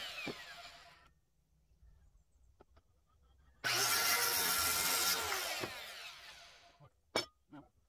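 An electric power tool working wood in two bursts: the first winding down over the opening second, the second starting about three and a half seconds in and running about a second and a half before fading. A couple of sharp clicks near the end.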